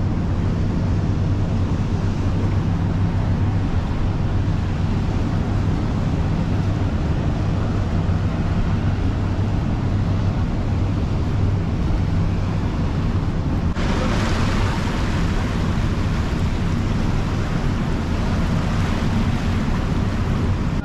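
Water churning and rushing as a canal lock chamber floods, over a steady low engine hum. About fourteen seconds in, the rushing suddenly turns louder and hissier.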